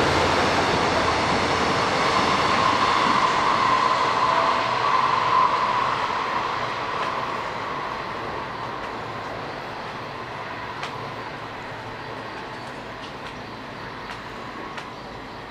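A train running on the tracks, loud at first and fading steadily as it moves away, with a steady whine for a few seconds in the first half.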